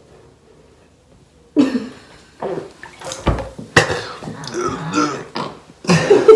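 A man burping and coughing hard after shotgunning a can of beer in one go, starting suddenly about a second and a half in, in a series of irregular bursts.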